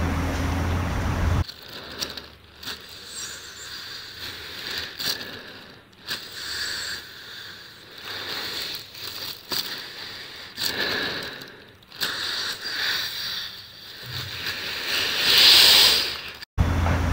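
Breathing inside a plastic bag worn over the head, each breath swelling and fading irregularly with the plastic crinkling; the loudest breath comes near the end. In the first second and a half, before the breathing starts, there is a low rumble of city traffic.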